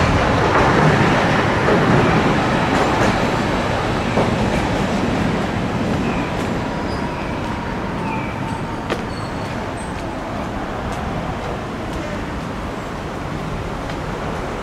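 Toyama streetcar running along the street, a rail rumble that is loudest at the start and slowly fades, over city traffic noise. A faint high steady whine holds for a few seconds in the middle.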